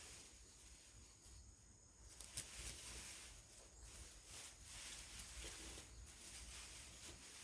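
Faint outdoor ambience: uneven rustling hiss over a low, fluctuating rumble, with thin steady high tones. A single sharp click a little over two seconds in is the loudest moment.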